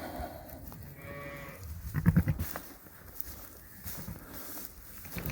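Dorset sheep bleating once, a short high-pitched call about a second in, followed around two seconds in by a louder, lower sound.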